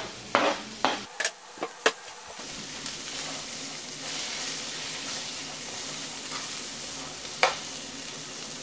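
Diced onion being scraped off a cutting board into a pan, several knocks and scrapes of the utensil against board and pan in the first two seconds. Then the onion and butter sizzle steadily in the pan as they are stirred, with one sharp clack a little past seven seconds.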